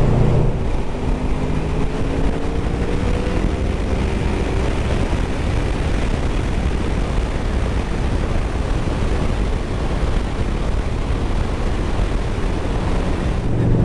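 Honda VFR800F's V4 engine running under a steady rush of wind noise on a motorcycle-mounted or helmet microphone while riding at road speed, the engine pitch rising slightly in the first few seconds.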